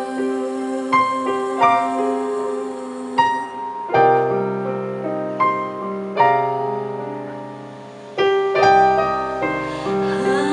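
Piano playing a slow ballad's instrumental passage, chords struck every second or so and left to ring, with lower notes joining about four seconds in. A woman's voice comes in singing near the end.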